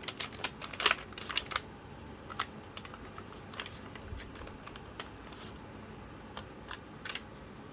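Small sharp clicks and taps from handling laptop parts and small tools: a quick cluster in the first second and a half, then scattered single ticks every second or so.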